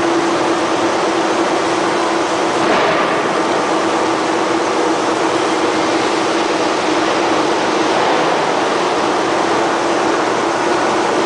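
Steady, loud industrial machinery noise in a forging shop, an even rushing din with a faint steady hum and no hammer blows.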